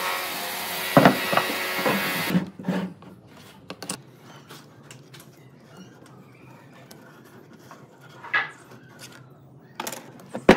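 Angle grinder with a sanding disc running against wood, with a few hard wooden knocks, cutting off sharply about two seconds in. After that come only faint taps and handling sounds of wooden blocks on the bench.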